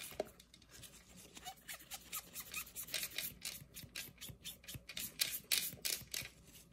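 A makeup sponge applicator rubbing black chrome powder onto a gel-coated nail tip, heard as a quick run of short, scratchy rubbing strokes, several a second.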